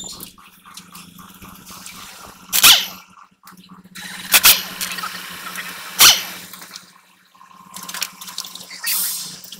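Impact wrench rattling in three short bursts about a second and a half to two seconds apart, undoing the mounting nuts of a truck's brake chamber on the axle, with lighter clatter of tools and parts in between.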